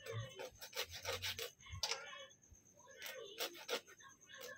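Scissor blade scraping the scales off a small sea fish in short, quick rasping strokes, a fast run of them and then a second cluster about three seconds in.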